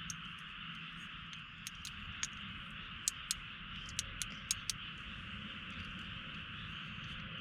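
Campfire wood crackling in scattered sharp pops, most of them between about one and a half and five seconds in, over a steady hiss and low hum.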